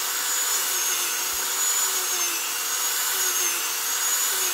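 Dremel rotary tool with a sanding drum running steadily against the rubber bead of an RC off-road tyre, a constant high whine over a grinding hiss. It is scuffing the bead so the glue will hold.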